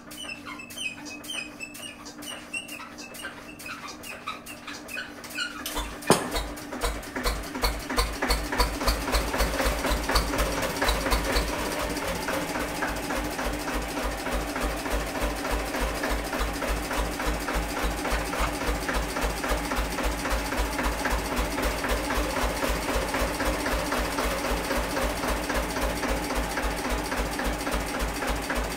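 Small vintage stationary engine starting: a single sharp bang about six seconds in, then firing beats that quicken over the next few seconds and settle into a steady run of about four beats a second. Before it starts there are faint squeaks.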